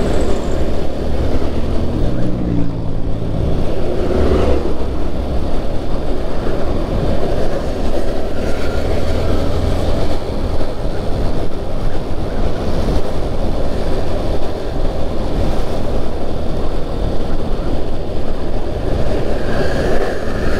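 Steady low rumble of a vehicle on the move: engine and road noise, with the engine note shifting in pitch in the first few seconds.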